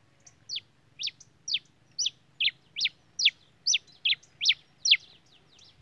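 Pileated finch (tico-tico-rei-cinza) singing a run of about eleven sharp, steeply down-slurred notes, a little over two a second.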